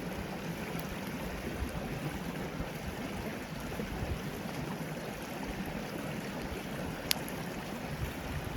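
Steady rushing of a forest stream, with one sharp click about seven seconds in.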